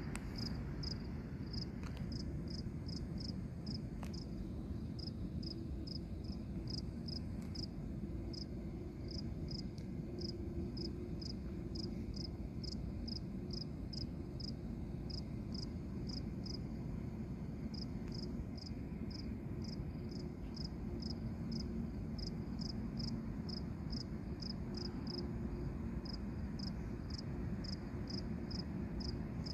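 Steady high chirping from a small animal, about three short chirps a second with brief pauses, over a low steady rumble.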